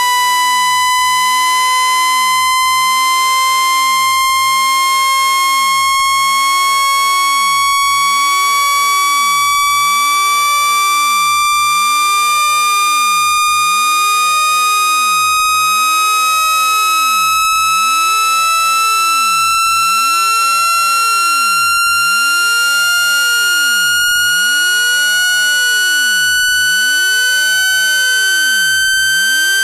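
Synthesized speaker-cleaning tone, meant to shake trapped water out of a phone speaker, played loud and steady with strong overtones, gliding slowly upward in pitch.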